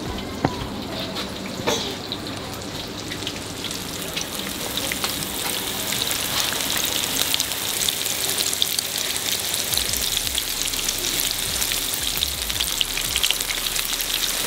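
Flour-coated chicken pieces deep-frying in a large kadai of hot oil: a dense crackling sizzle that thickens and grows louder a few seconds in.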